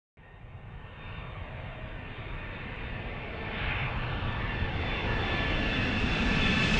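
A low, engine-like rumbling roar with a few faint steady high tones over it, swelling steadily louder and then cut off abruptly.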